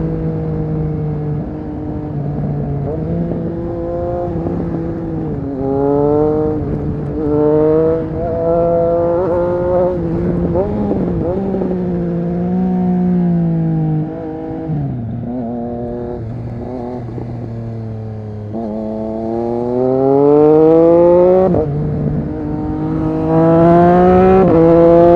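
Triumph Street Triple RS 765's three-cylinder engine through an SC-Project S1 exhaust, accelerating hard with its pitch climbing and dropping back at each upshift. It settles to a low, steady drone around the middle, then pulls up through the revs twice more near the end.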